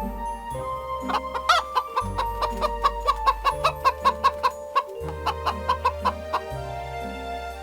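A chicken clucking in a quick run of short, sharp clucks, about four a second, starting about a second in and stopping near the end, over background music.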